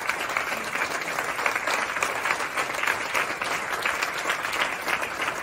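A large audience clapping: dense, steady applause.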